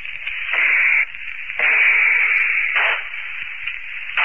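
Radio-drama sound effects of rifle shots in a rooftop gunfight: about four sudden, noisy bangs, each trailing off, with one long one in the middle, all with the muffled sound of an old radio recording.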